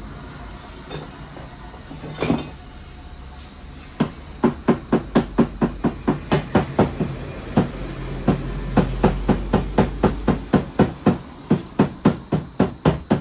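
A hammer striking in a fast, even rhythm, about three blows a second, starting about four seconds in, with a single knock a couple of seconds before. This is the mechanic working on the punctured tube-type motorcycle wheel.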